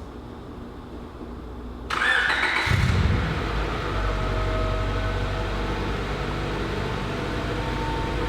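Honda Integra Type R's B18C four-cylinder engine being started: the starter cranks about two seconds in, the engine catches within a second with a brief rev, then settles into a steady idle.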